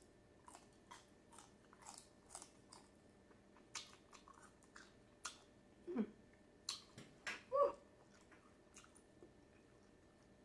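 Close-up crunching of a celery stick dipped in ranch dressing as it is chewed: irregular crisp crunches that grow louder toward the middle, with a short closed-mouth "mm" about six seconds in.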